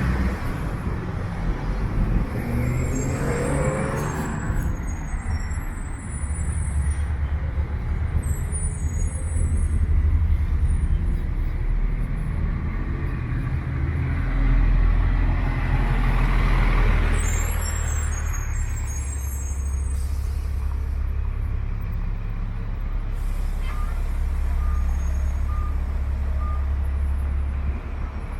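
Street traffic: trucks and cars running and passing, with a loud pass-by about halfway through. Near the end, four short evenly spaced beeps sound.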